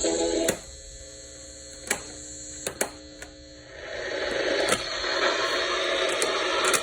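Soundesign clock radio switching over from tape playback: the music cuts off with a click, leaving a steady electrical hum and several sharp button clicks. From about four seconds in, a hiss of static comes up through the speaker.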